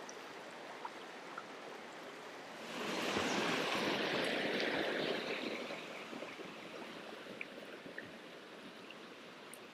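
Shallow river running over stones, with a louder rush of water for about three seconds, starting a little under three seconds in.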